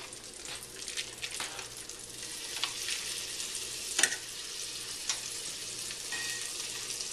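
Butter sizzling as it melts in a hot stainless steel skillet, with sharp clicks of a knife against the pan and plate, the loudest about four seconds in.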